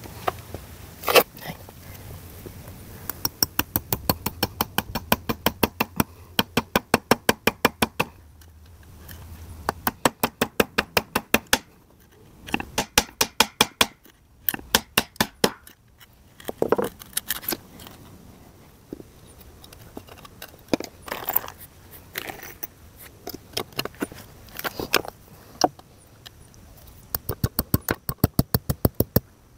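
Hammer driving nails through a wooden board into a cut-up car tyre, in runs of quick, light strikes about five a second, with pauses and a few single heavier blows.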